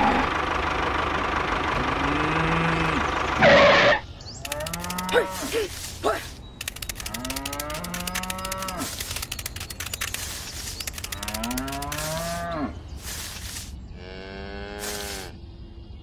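Cattle mooing repeatedly, a string of calls that rise and fall in pitch. For the first three or four seconds a steady, louder noise runs underneath and ends in a short loud burst.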